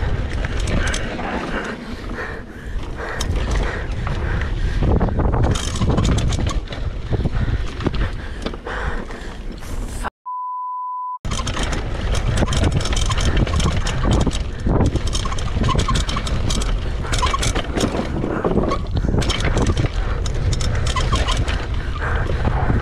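Wind rush and rattling of a downhill mountain bike's tyres and frame over a rough dirt trail, a steady noisy rumble full of small clatters. About ten seconds in, the sound cuts out for about a second and is replaced by a steady beep, a censor bleep.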